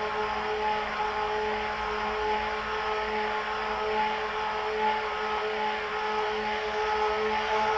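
Handheld high-shear homogenizer running at constant speed, its motor giving a steady whine over a rushing hiss as its stainless shaft mixes a white slurry of silicon dioxide in ethyl alcohol.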